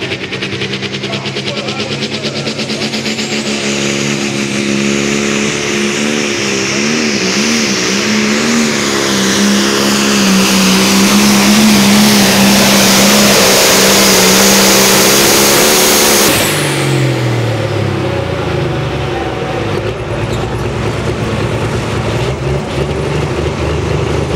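International 'Hyper Harvester' pulling tractor's turbocharged diesel engine running at full throttle while hauling the sled, with a high whine climbing in pitch. About 16 seconds in the throttle is cut and the engine winds down, then runs on at lower revs.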